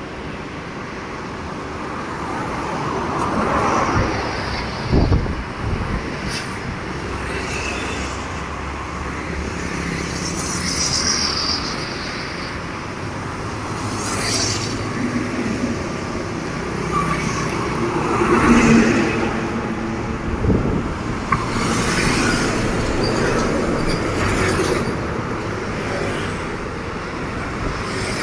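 Road traffic passing close by, with heavy trucks among it: engine and tyre noise that swells and fades as each vehicle goes past, with a couple of sharp knocks.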